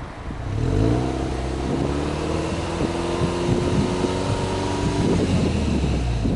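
Turbocharged flat-four boxer engine of a 2005 Subaru Legacy Touring Wagon 2.0GT, heard at its twin exhaust tips with no load. It is revved up a little under a second in and held at a steady higher speed for about four seconds, then let go near the end.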